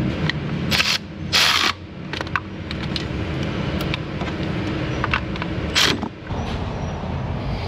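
Mechanic's tools working on an engine bolt: light metal clicks and a few short hissing bursts, near the start and again about six seconds in, over a steady low machine hum.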